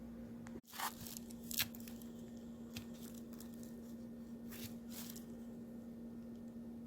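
Faint eating sounds: a few short, crunchy, crinkly strokes of someone chewing and handling a salad with kimchi, over a steady low hum.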